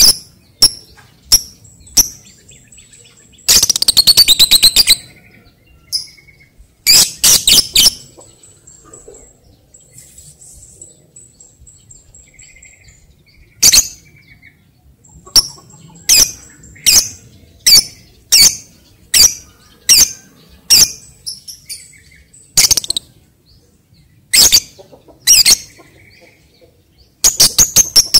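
Lovebird calling with loud, sharp, shrill chirps. Twice, about three and a half and seven seconds in, it breaks into a fast chattering trill of rapid repeated notes lasting about a second: the 'ngekek' song.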